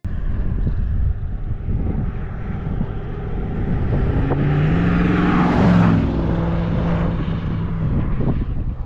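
Chevy Tahoe driving past. The engine note and tyre noise build to a peak about six seconds in as it passes, then ease off.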